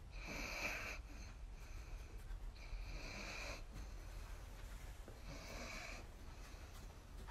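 Sleeping dog snoring, three hissing snores about two and a half seconds apart.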